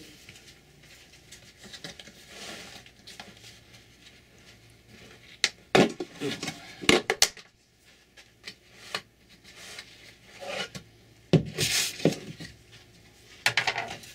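Plastic lid of a tub of drywall filler being prised off, with sharp snaps and knocks about six to seven seconds in. The tub is then handled and set down on the wooden workbench, giving more knocks about eleven seconds in and again near the end.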